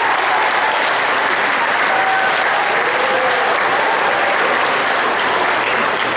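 Audience applauding, with a few voices calling out over the clapping.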